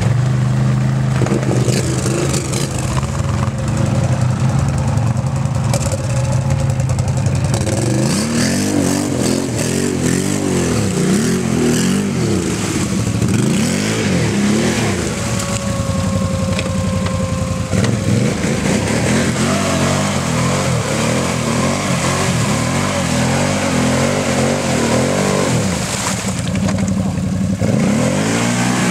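ATV engine running at a steady pitch for several seconds, then revved up and down again and again as the quad churns through a deep mud hole, each rev rising and falling over a second or two.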